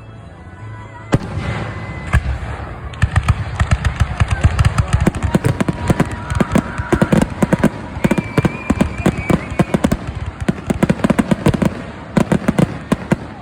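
Fireworks show: a single bang about a second in, then a dense barrage of rapid bangs and crackling that runs on, with a brief lull about ten seconds in, and cuts off near the end.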